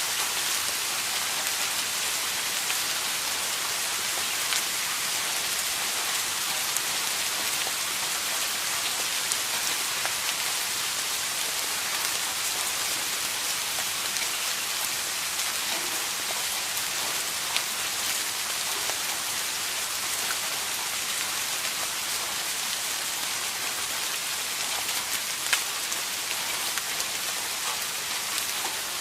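Steady rain falling, a dense even patter of drops on a surface, with a few louder individual drops standing out now and then.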